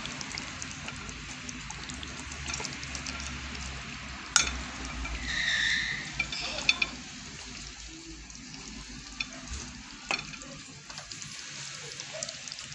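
Pork ribs simmering in a thick red chile sauce in a frying pan, with a steady sizzle. A slotted spatula stirs and scrapes through the sauce, knocking against the pan a few times as a rib is lifted out. A brief high tone sounds around the middle.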